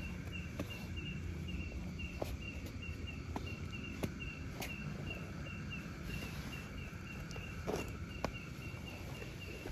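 An insect chirping steadily in short pulses at one high pitch, about three a second, with a few faint scattered clicks.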